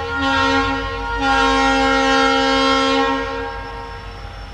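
WDP4D diesel locomotive sounding its horn as it approaches: a short blast, then a long one of about two seconds that fades out past the middle. The locomotive's engine rumbles low underneath.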